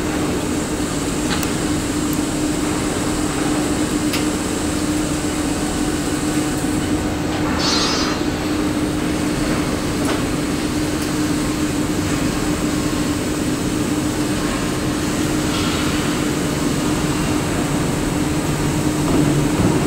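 WMTCNC CK6166 CNC lathe running, its spindle turning a steel workpiece under the cutting tool: a steady machine hum with a steady low-mid tone, and a brief higher-pitched sound about eight seconds in.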